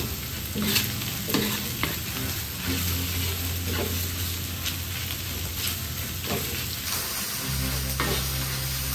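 Chicken intestines and pineapple sizzling steadily in a pan as they are stir-fried dry. A sharp stroke of the stirring cuts through every second or two.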